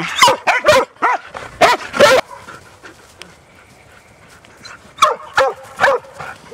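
Huntaway dog barking loudly: a quick run of about six barks, a pause of nearly three seconds, then three more barks near the end.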